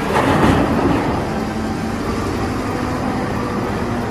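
Caterpillar 992G wheel loader's diesel engine running steadily while its bucket dumps a load of earth into a dump truck, the load pouring into the bed with a rushing noise in the first second.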